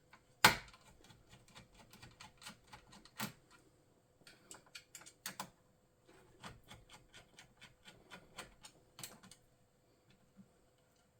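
Screwdriver backing out small screws from an all-in-one PC's frame: a run of irregular light clicks and taps, with a sharper knock about half a second in.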